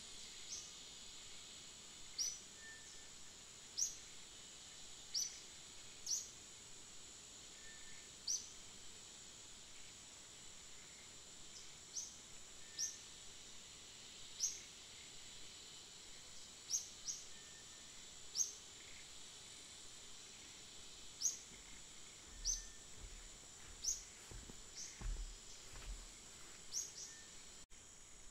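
A steady high insect drone with short, high bird chirps every second or two, and a few low bumps near the end.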